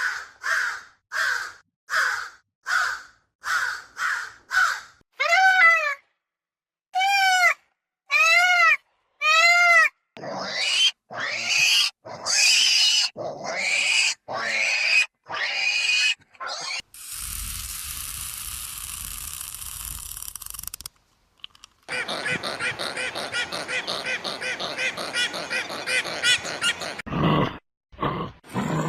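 Farm animal calls, a series of short separate recordings: quick repeated short calls about twice a second, then a few arching pitched calls, then rising calls, a stretch of steady hiss, and a long dense, fast chatter near the end.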